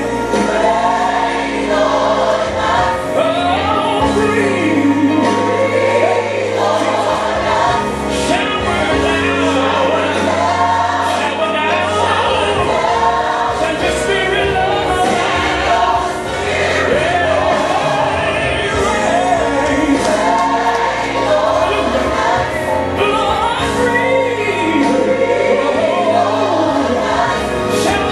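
Gospel choir singing a worship song over instrumental backing with a steady bass line.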